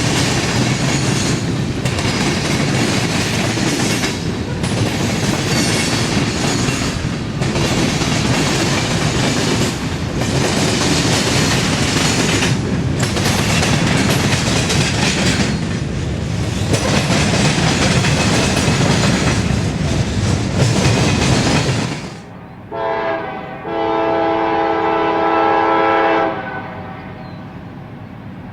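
Freight train cars rolling past close by with steady wheel clatter and brief dips every couple of seconds. The sound changes abruptly about 22 seconds in, and a locomotive's multi-note air horn gives a short blast, then a longer one of about two and a half seconds.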